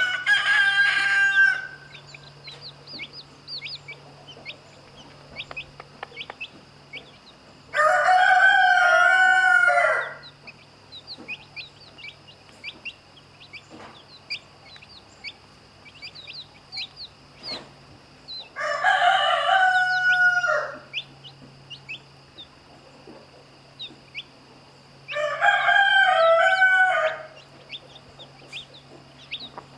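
Rooster crowing four times, each crow about two seconds long and spread several seconds apart, with chicks peeping faintly between the crows.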